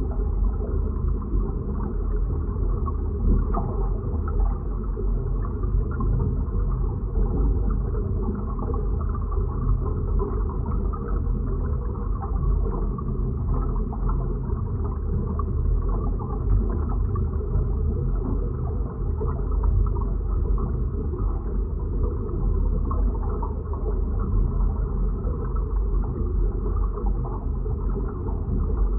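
Designed science-fiction deep-sea and space ambience: a continuous deep, muffled rumble with a fine crackle running through it and no distinct events.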